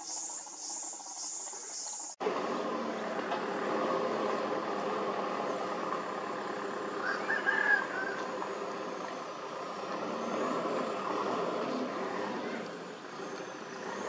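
Crickets chirping in steady pulses, cut off abruptly about two seconds in. They give way to a steady engine-like hum, with a short bird-like chirp about halfway through.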